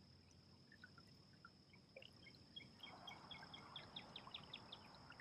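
Faint birdsong over a near-silent background: scattered single chirps, then, about two and a half seconds in, a small bird's rapid run of short high notes lasting about two seconds.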